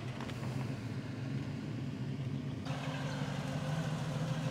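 Classic car engines running at low speed as cars roll past, a steady low rumble that switches abruptly to a different, steadier engine note a little over halfway through.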